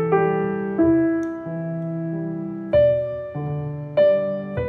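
Background music: piano playing held chords that change every one to two seconds.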